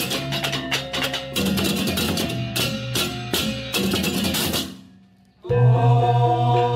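Background music with a steady drum beat, fading out about five seconds in; after a short gap a different piece starts with held notes.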